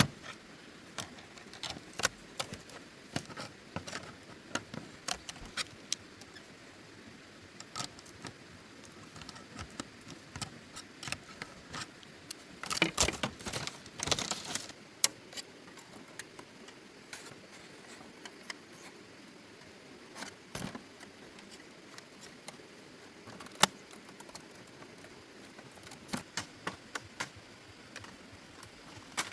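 Irregular light clicks and knocks, with a denser clatter lasting about two seconds near the middle.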